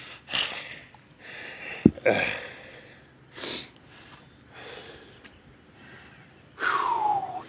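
A man breathing hard in short, noisy puffs and sniffs while straining to lift sunken gravestones, with a sharp click about two seconds in and a louder sigh falling in pitch near the end.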